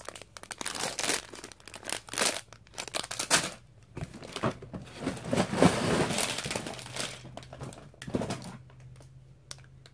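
Clear plastic bags of Lego bricks crinkling as they are handled: short crackling bursts at first, a longer run of crinkling about halfway through, then fewer and quieter crackles near the end.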